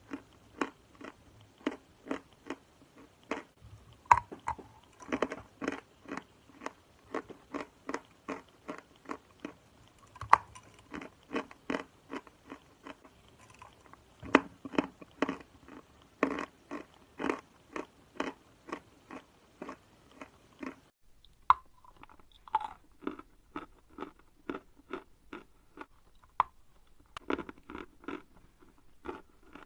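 Dry edible chalk being chewed close to the microphone: a steady run of crisp crunches, about two a second, with a few louder snapping bites.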